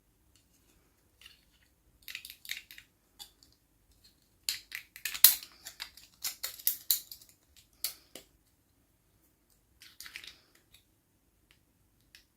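Bursts of crisp crackling and clicking from toy packaging being handled and opened: a short burst, then a longer, louder run of crackles, then a brief one near the end.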